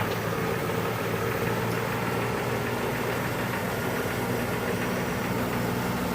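1998 Chevrolet Malibu's 3.1-litre V6 idling steadily through a brand-new complete exhaust system. It runs nice and quiet, the sign that the loud exhaust leak is cured.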